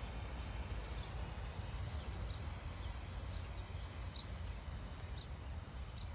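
Outdoor ambience: a steady low rumble with a faint hiss, and a faint short high chirp repeating about once a second.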